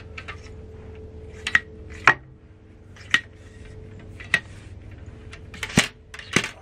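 A ramrod worked down the bore of a flintlock muzzleloading rifle, pushing a tight greased-patched ball. It gives irregular sharp metallic clicks and knocks, about six strong ones, as the rod strikes and scrapes the muzzle. The patch lube has gone stiff in the cold, so the ball goes down hard.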